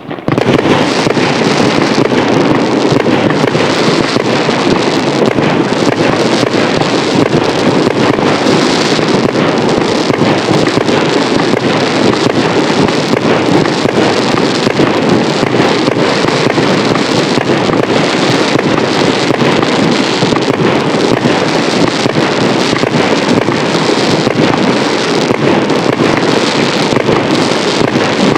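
Fireworks going off in a dense barrage: shell bursts and crackles so closely packed that they run together without a break, starting suddenly and staying loud throughout.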